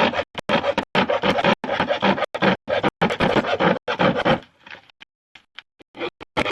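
A plastic basket being cut by hand: a run of quick rasping strokes that stops about four and a half seconds in, leaving a few light clicks, then starts again near the end.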